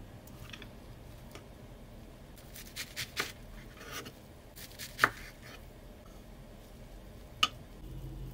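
Kitchen knife cutting through a bunch of enoki mushrooms onto a bamboo cutting board: a few sharp knocks at uneven intervals, the loudest about five seconds in, with quiet handling between.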